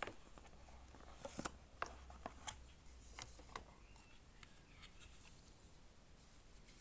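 Quiet handling of a cardboard pen box: a handful of light clicks and taps in the first few seconds as the rubber band is slipped off and the lid is lifted, then a few fainter ticks as a fabric pen wrap is lifted out.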